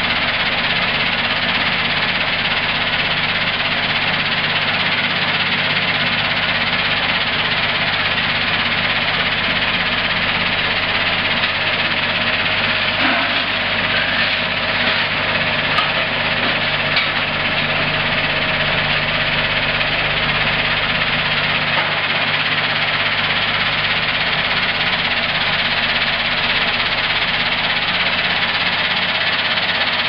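Vibrating shaker machine shaking freshly stamped steel parts for Swiss Army knife leather tools on a perforated steel screen, making a dense, steady metallic rattle over the machine's low hum. The shaking knocks out the leftover bits of metal from stamping.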